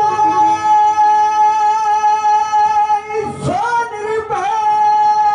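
Live devotional bhajan music: one long note held steady, broken about three and a half seconds in by a voice swooping up in pitch and settling back onto the note.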